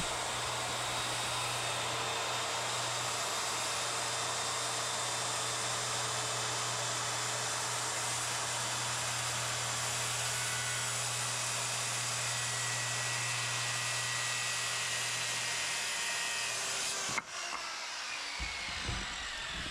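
Power saw running steadily through wood. About seventeen seconds in, a cut gives way to a quieter, different stretch of machine noise.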